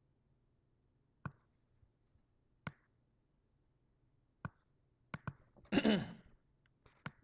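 Computer mouse clicking: single sharp clicks every second or two while text on a web page is selected and deselected. About six seconds in comes a brief, louder sound with a falling pitch.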